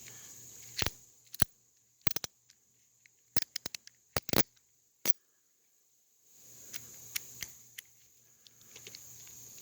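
Half-inch-drive ratcheting adapter clicking as it is worked by hand: sharp separate clicks, some single and some in quick runs of three to five.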